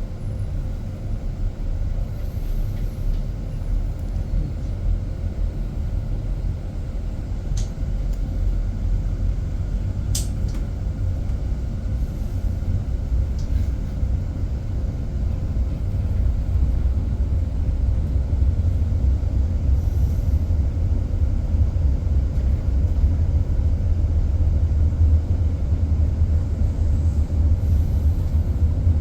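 Driverless bus on the move, heard from inside: a steady low road and drive rumble that grows a little louder about halfway through, with a couple of faint clicks.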